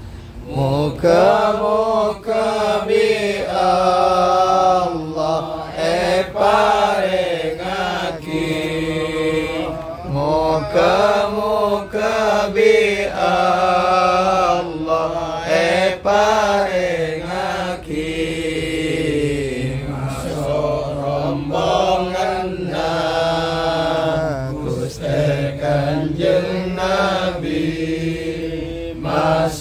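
A group of men chanting sholawat, devotional Arabic blessings on the Prophet, in unison without accompaniment, in slow, drawn-out melodic phrases with long held, gliding notes.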